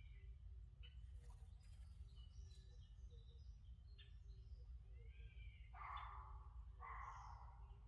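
Faint forest birdsong: scattered short arching chirps from small birds, with two louder, noisier calls near the end, over a steady low rumble.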